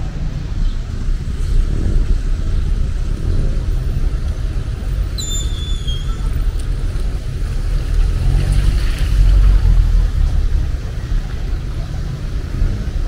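Street traffic: cars passing with a steady low rumble that swells about eight to ten seconds in as a vehicle goes by. A short high tone glides downward about five seconds in.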